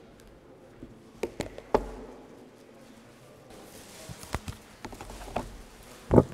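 Scattered light knocks and taps, with a faint rustle setting in about halfway through and a louder pair of thumps near the end.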